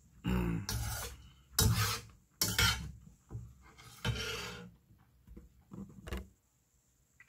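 Metal spoon scraping along the bottom and sides of an aluminium pot of soup: several short scrapes in the first five seconds, with a couple of fainter ones near six seconds.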